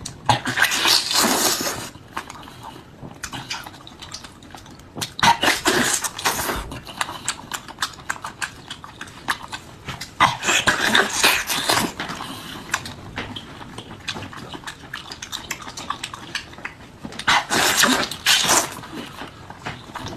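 Close-miked sounds of eating seafood: wet chewing and slurping, loudest in four bursts of a second or two, with quieter clicky chewing between them.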